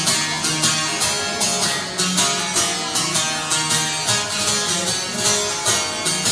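Bağlama (long-necked Turkish saz) playing an instrumental passage between sung verses of a semah tune, strummed in a brisk, even rhythm.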